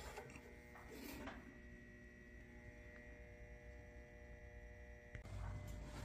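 Near silence with a faint steady electrical hum; a low rumble comes in about five seconds in.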